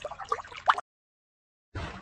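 Water trickling and dripping in small plops. It cuts off abruptly to dead silence a little under a second in, and about a second later a steady low noise begins.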